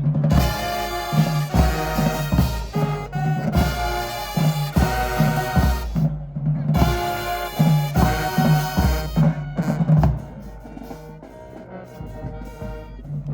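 High school marching band playing: loud brass chords in short phrases over bass drums and percussion. The loud playing breaks off about ten seconds in, leaving much quieter sound.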